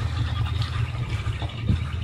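V8-sounding engine of a lowered 1983 Dodge D150 pickup running at low revs through open Hooker headers with no exhaust system, a steady uneven low rumble as the truck creeps along.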